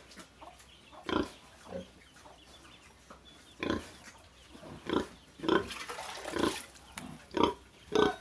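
Domestic pig grunting in short separate bursts, a few at first and coming more often after about three and a half seconds.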